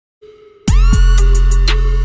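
Electronic intro music: after a faint steady tone, a loud beat comes in about two-thirds of a second in, with heavy bass, deep kick drums and sharp percussion hits.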